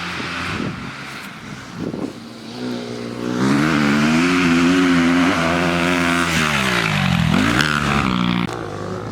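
Dirt bike engine revving: it rises in about two and a half seconds in, holds high and wavers with the throttle, drops sharply and picks up again about seven and a half seconds in, then eases back near the end.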